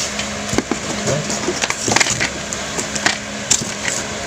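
Hands handling a plastic cordless drill body and setting it down on a tiled floor: scattered light clicks and knocks, over a faint steady hum.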